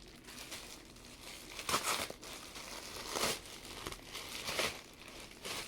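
A mailed package being opened by hand: its wrapping crinkles and tears in several short rustling bursts.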